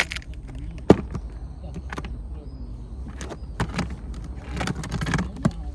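Irregular sharp clicks and knocks, about eight, the loudest about a second in and a denser clatter a little before the end, over a low steady rumble.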